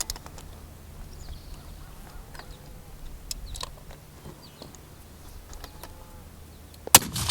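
A single sharp rifle shot about seven seconds in, with a short echo after it, over faint birdsong and outdoor background.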